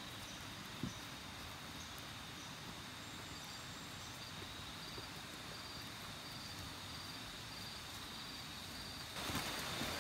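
Tropical forest insects buzzing in a steady high drone, with a faint chirp repeating about twice a second above it. Near the end, louder rustling and wind on the microphone come in.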